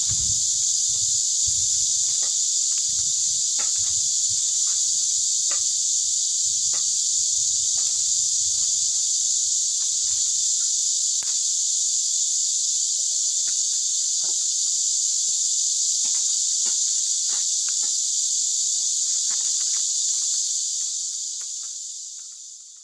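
Steady high-pitched chorus of insects outdoors, unbroken, fading out near the end, with light scattered clicks of bamboo strips being handled and woven.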